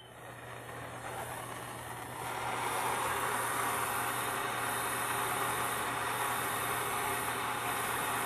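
Handheld gas torch burning with a steady rushing hiss, louder from about two seconds in, while its flame heats a copper pipe joint for soldering.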